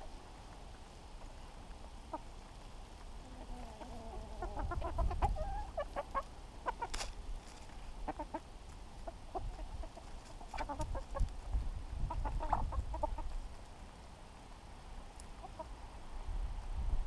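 Domestic hens clucking in short, scattered bursts, busiest about four to six seconds in and again around ten to thirteen seconds, with one sharp tick about seven seconds in.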